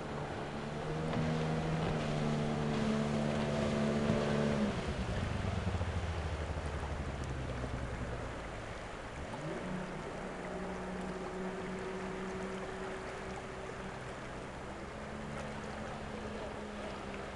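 Motorboat engine running steadily over a wash of water and wind noise. Its note drops about five seconds in, then climbs again and holds steady near ten seconds.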